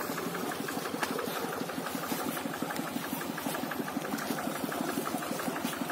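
Engine of a hand-tractor rice-paddy plough running steadily at idle, with a rapid, even beat.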